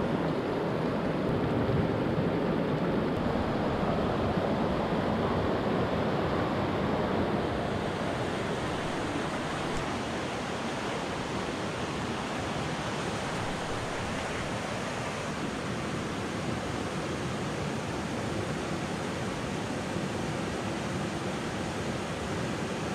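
Steady rush of a hill stream's flowing water, a little quieter from about seven seconds in.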